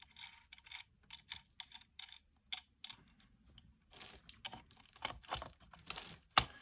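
Hand-handling clicks and small metallic clinks of a metal super clamp and camera mount being fitted and adjusted on a rifle, with one bright ringing clink about 2.5 seconds in and heavier knocks toward the end.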